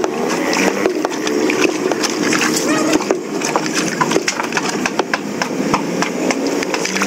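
Irregular hammer knocks on wooden concrete formwork, with workers' voices in the background.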